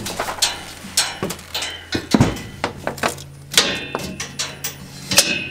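Irregular knocks and clanks of a steel work-platform cage as someone climbs in and moves about on its floor and rail, over a steady low hum.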